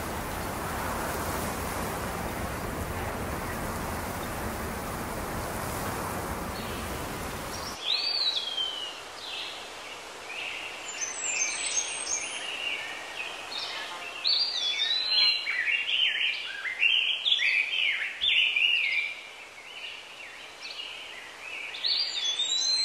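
A steady rushing noise that cuts off about eight seconds in, followed by songbirds singing, with many short high chirps and whistled phrases overlapping.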